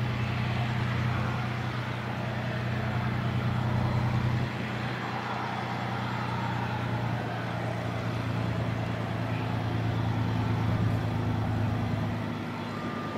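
JF-17 Thunder's single RD-93 turbofan at low power during the landing rollout, drag chute out: a steady jet roar over a low hum, easing slightly about four seconds in and again near the end.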